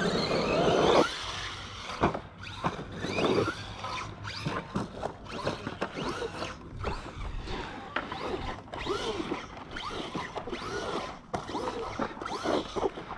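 Arrma Outcast 4S radio-controlled stunt truck's brushless electric motor whining, its pitch rising and falling again and again as the throttle is worked, with scattered clicks and knocks from the truck on the dirt. The loudest stretch comes in the first second.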